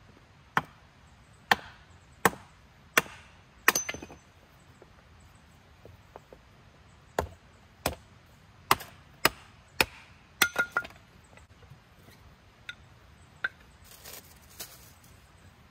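Firewood being chopped into smaller pieces for a campfire with a hand tool: sharp chops, five at about one a second, then after a pause a quicker run of chops, and a few lighter taps near the end.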